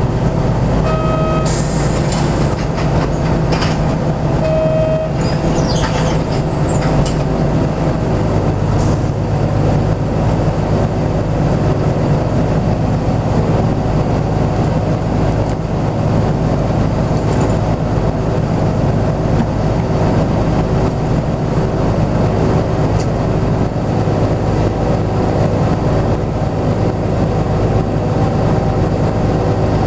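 Diesel engine of a 1999 Hino Blue Ribbon route bus running at a steady low idle, heard from inside the cabin while the bus stands still. Two short beeps sound in the first five seconds.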